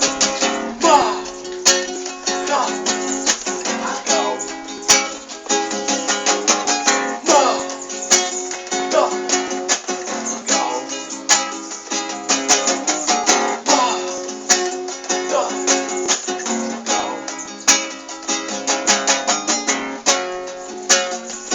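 Instrumental break of a song: guitar strummed rapidly with other plucked strings, no singing.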